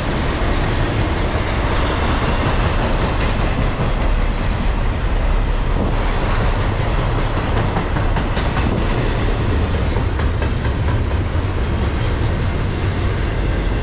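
Cars of a Norfolk Southern intermodal freight train, carrying trailers on flatcars and double-stacked containers, rolling past close by: steel wheels running on the rails make a steady noise that does not change.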